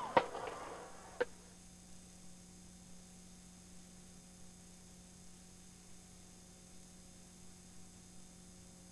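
Sound breaks off with a sharp click, another click follows about a second in, then a steady low electrical hum with faint hiss, the kind left on a videotape after the recorded audio ends.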